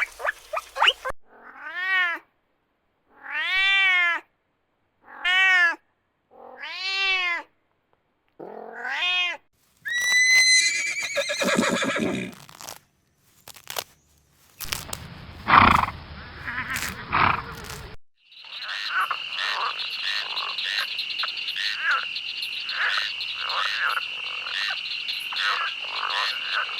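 A run of different animal calls. It opens with about five separate calls, each under a second, that rise and then fall in pitch. Shorter, different animal sounds follow, and it ends on a steady, high, rapidly pulsing call.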